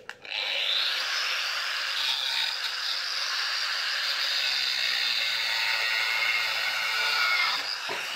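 Angle grinder running under load, cutting off a piece. It starts a fraction of a second in, keeps a steady hissing whine, and falls away near the end.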